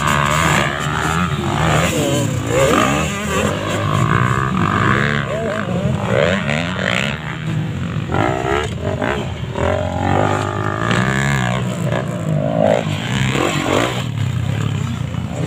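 Several motocross dirt bikes racing, their engines revving up and down at once, with pitches rising and falling and overlapping throughout.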